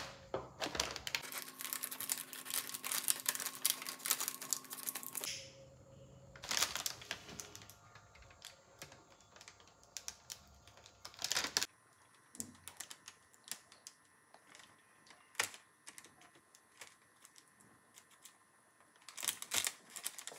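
Plastic crisp packet being cut and worked by hand: dense runs of small crinkly clicks and snips in the first half, then scattered single ticks.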